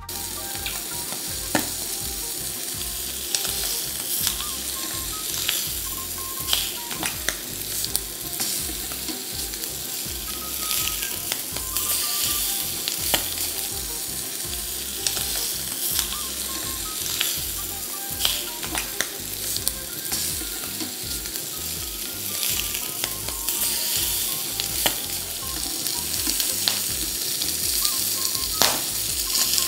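Chicken thighs sizzling skin-side down in a non-stick frying pan with no added fat, frying in the fat that renders from the skin. A steady sizzle with scattered crackles and pops.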